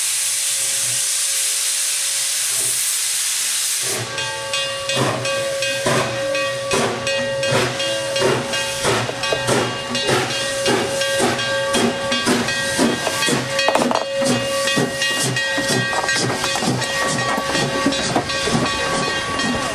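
Canadian National 7470 steam locomotive working past on a runby. For about four seconds there is a steady loud hiss of steam from its open cylinder cocks. After that come sharp exhaust chuffs that quicken as it pulls by, with a steady pitched tone sounding beneath them.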